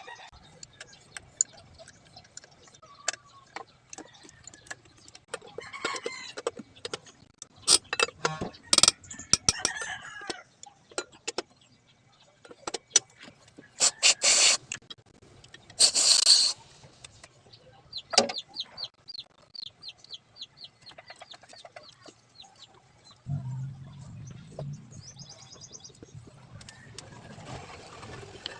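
Rooster crowing several times, among scattered sharp clicks and knocks of hand tools. A run of quick ticks comes about two-thirds of the way in.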